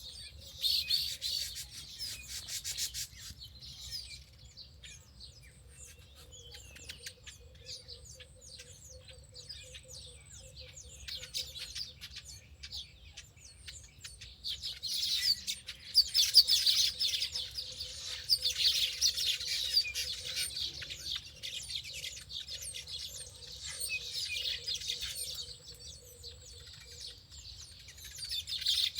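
Many small birds chirping and twittering together in a dense chorus of short, high calls, busiest in bursts near the start, through the middle, and again near the end. A faint, low, pulsing note runs beneath the chirping for much of the time.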